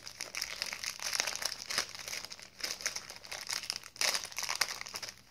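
A crinkly plastic snack packet being crumpled and worked at by hand in an effort to get it open: a dense run of crackling with sharper crackles, loudest about four seconds in.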